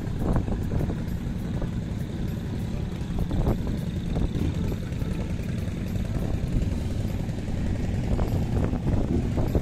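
A motorcycle engine idling with a steady low rumble.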